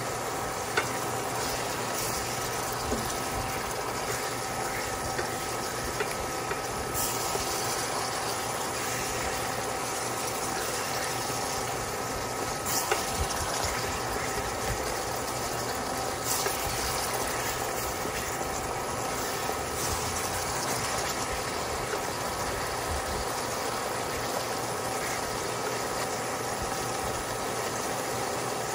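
Pechay and shiitake simmering and sizzling in a stainless steel pot over a steady cooktop hum with a faint whine. A silicone spatula stirs the greens now and then, with a few short rustling swells and small taps against the pot.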